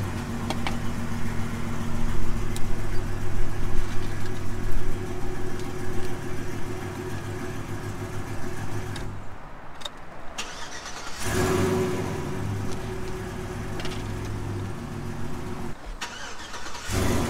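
Pickup truck engine idling with a steady hum. The sound drops out about nine seconds in for roughly two seconds and again near the end for about a second, each time coming back with a short burst like the engine starting up again.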